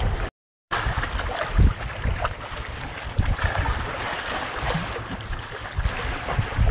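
Wind buffeting the microphone in uneven low gusts over the running water of a shallow stream. The sound cuts out completely for a split second just after the start.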